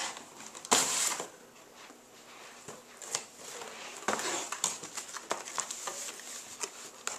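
Cardboard boxes scraping and rubbing as a small accessory box is pulled out of a larger packing box, with one loud scrape about a second in, then quieter rustles and light knocks of cardboard as the box is handled and set down.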